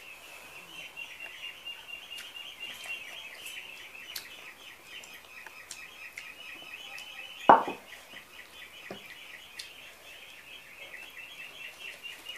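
Steady, rapid high-pitched chirping in the background, with faint clicks from handling food and dishes and one loud thump a little past halfway.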